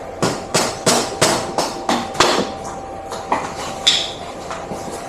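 Hammer blows, about three a second in a steady run of roughly seven, then a few scattered knocks near the end, one ringing briefly, while parts of an electric unicycle are being knocked loose.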